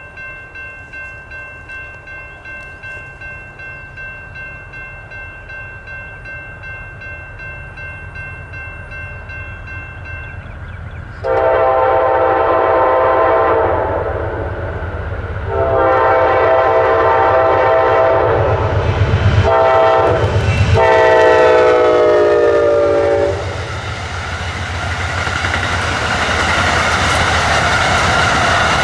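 A railroad crossing bell rings steadily. An Amtrak passenger train's horn then sounds its long crossing blasts as the locomotive approaches, and from near the end the train's cars pass with a steady rush of wheel and rail noise.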